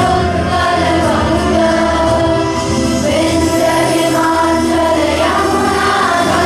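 Music with a group of voices singing a song.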